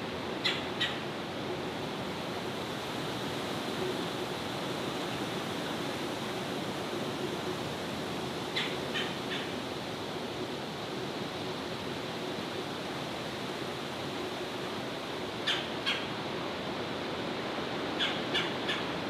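Birds giving short, sharp calls in groups of two or three, four times, over a steady rushing background noise.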